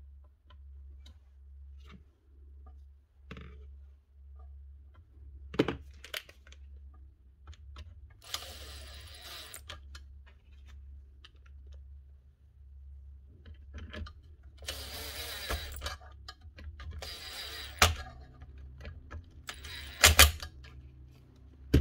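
Hand tools and small metal parts being handled during a power-tool repair: scattered clicks and knocks and several bursts of scraping or rattling about a second long, with the sharpest knocks near the end, over a steady low hum.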